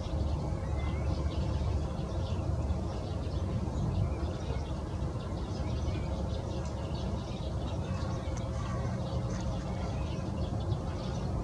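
Open wetland ambience: a steady low rumble with a faint steady hum, and many short, faint bird chirps and calls scattered throughout.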